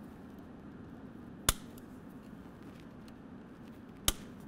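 Two sharp clicks, about two and a half seconds apart, from a wiring harness being fastened in place by hand, over a faint steady low hum.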